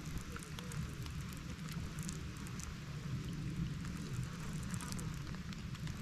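Light rain falling on the creek's surface, heard as a steady hiss with scattered, irregular drop ticks over a steady low rumble.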